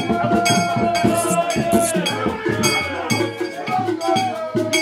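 Music with a steady rhythm of drums and clacking percussion, with a held melodic line above it.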